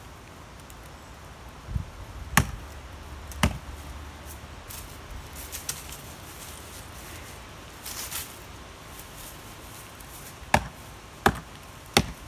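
An axe chopping into a standing dead tree trunk: two sharp chops about a second apart, a long pause, then three more in quick succession near the end, about two-thirds of a second apart.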